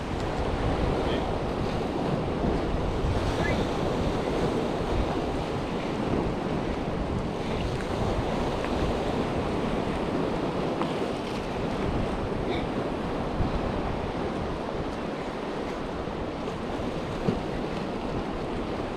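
Sea surf washing steadily against a rocky shore, with wind buffeting the microphone.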